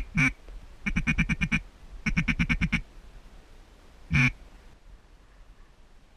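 Duck quacking: one quack, then two quick runs of about seven or eight quacks each, then one more quack.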